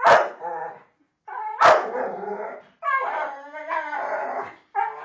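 Pit bull making a string of howling, "talking" vocalizations, strange yowling noises mixed with bark-like yips, while it attacks a toy in play. They come as several separate outbursts, the longest drawn out for about a second and a half.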